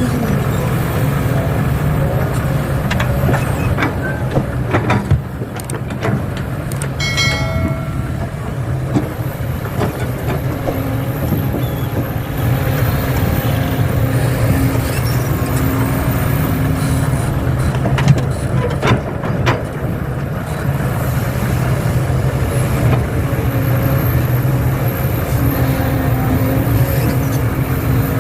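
Excavator running steadily while loading soil into a dump truck, with scattered knocks and clatters from the bucket and soil, and a short high tone about seven seconds in.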